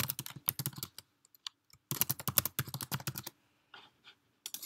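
Typing on a computer keyboard: two quick runs of keystrokes with a short pause between them, then a few separate clicks near the end.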